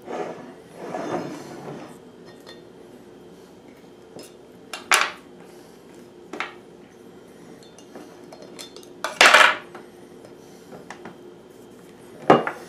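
Handling sounds on a tabletop: rustling of a cardboard box, then a few separate sharp clinks and knocks as a small metal knife and metal hitch-lock parts are set down and handled, the loudest a bit past the middle.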